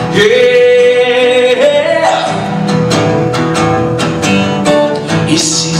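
Acoustic guitar strummed in a steady rhythm under a man's voice holding one long sung note, which steps up in pitch about two seconds in.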